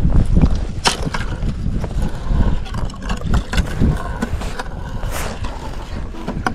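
Irregular knocks and scuffs of boots on bare lake ice, over wind rumbling on the microphone.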